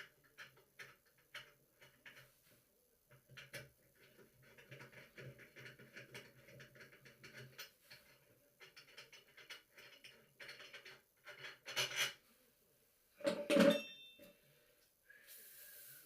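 Hand tools and metal faucet parts being handled, with many small irregular clicks and rattles and a louder clatter near the end.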